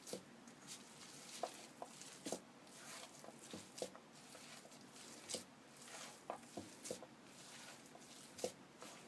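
Boiled mashed potatoes being mixed with salt and spices for samosa filling: faint, irregular soft squishes and small clicks as the mash is worked.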